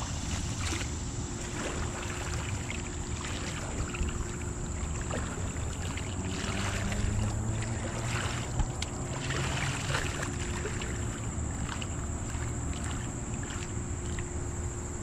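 Shallow creek water sloshing and splashing as a metal detector's search coil is swept through it, over a steady low rumble.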